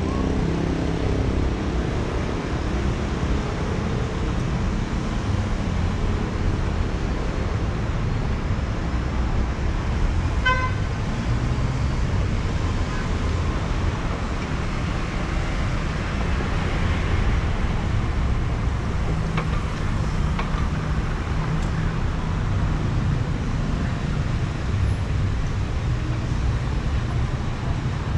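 Street traffic at a town intersection: car engines running and passing in a steady low rumble. About ten seconds in there is a short car horn toot.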